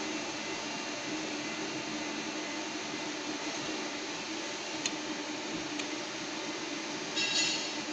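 Steady mechanical hum of welding equipment running under test, with a single sharp click about five seconds in and a brief louder rattle near the end.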